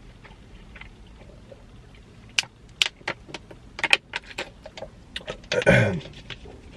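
Close-miked chewing and wet lip-smacking clicks of someone eating pepperoni pizza. The clicks start a couple of seconds in and come irregularly, and a short voiced hum follows near the end.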